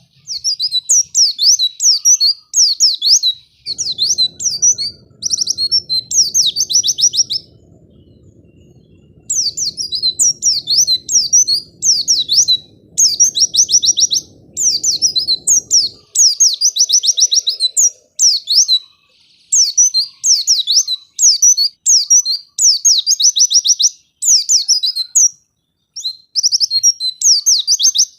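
White-eye (pleci) singing a fast, high twittering song in quick bursts of chirps, with a pause of about two seconds near the end of the first third.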